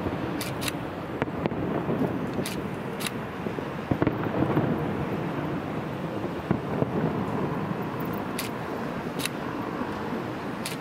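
Distant fireworks booming dully over a steady low rumble of city traffic, with a few short sharp clicks scattered through.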